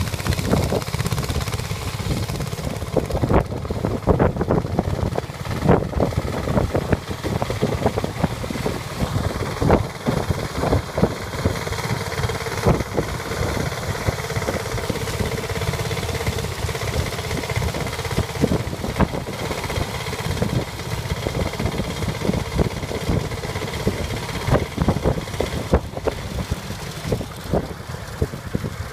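Tractor engine running steadily, with wind buffeting the microphone in irregular gusts.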